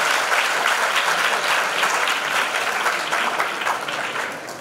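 Audience applauding, a dense round of many hands clapping that begins to die away near the end.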